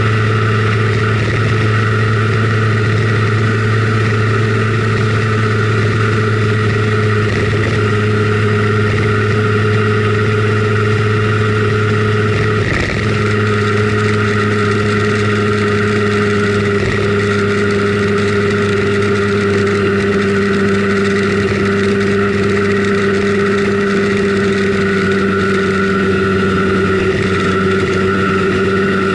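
Simson Schwalbe KR51/2 scooter's 50 cc single-cylinder two-stroke engine running at a steady cruise under a rider, its pitch holding nearly constant, with a brief dip about halfway through.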